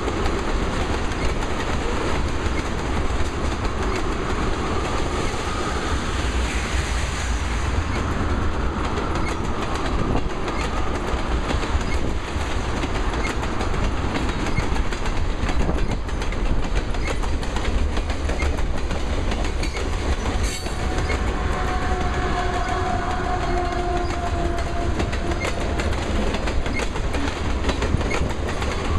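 Freight cars rolling steadily past on jointed rail: a continuous clickety-clack of steel wheels striking the rail joints over a low rumble.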